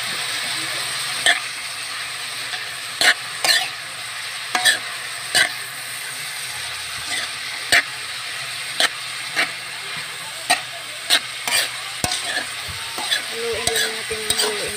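Chopped papaya sizzling as it is sautéed in a metal pan, while a metal spoon stirs it, clicking and scraping against the pan at irregular intervals.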